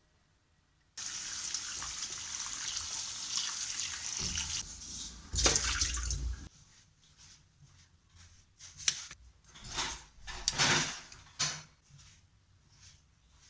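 Water running from a kitchen tap for about five seconds, then cut off abruptly, followed by scattered short knocks and rubbing sounds.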